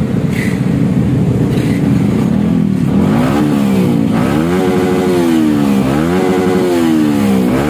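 A Yamaha WR155R's single-cylinder four-stroke engine runs through its hollowed-out (bobok) muffler. It idles for about three seconds, then is revved sharply three times, each rev climbing quickly and falling back slowly toward idle.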